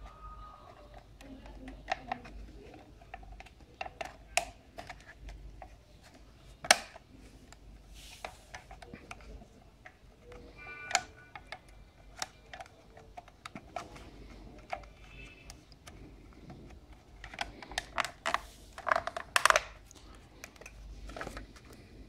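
Plastic clicks and taps from the parts of a handheld vacuum cleaner's housing being handled and fitted together, with a quick run of sharper clicks near the end.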